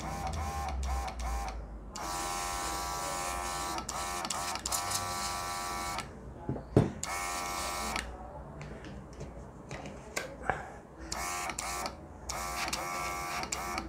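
Small electric motor of a NEOECO portable airbrush compressor running with a steady whine and a hiss of air. It runs in spells, stopping and starting again several times, the longest lasting about four seconds. There is one short knock in the middle.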